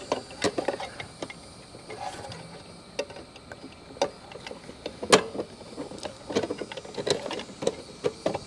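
Thin sheet-metal cover of an RV water heater's ignition control board being handled and pushed into place over the board, giving irregular light metallic clicks and taps, with one sharper clack about five seconds in.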